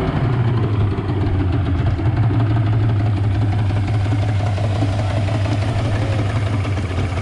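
Yamaha 150 hp two-stroke outboard motor idling with a steady low drone and an uneven pulse; the engine has an idle problem.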